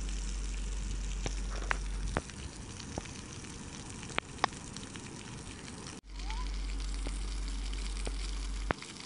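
Steady rushing water of a waterfall, an even hiss, with a low rumble for the first two seconds and again from about six seconds in, and a few sharp clicks. The sound breaks off abruptly about six seconds in and resumes.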